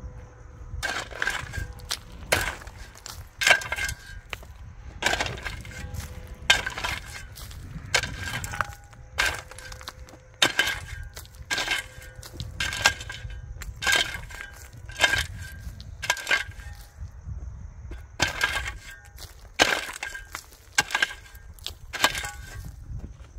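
Metal digging tool striking hard, stony ground over and over, about one blow a second, each with a short metallic ring, with a brief pause about 17 seconds in.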